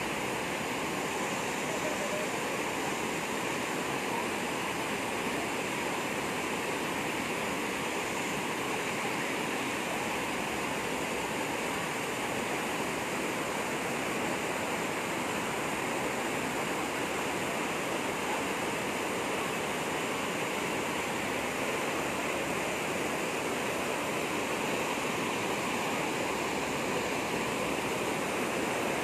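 Rain-swollen water gushing hard in a steady, unbroken rush.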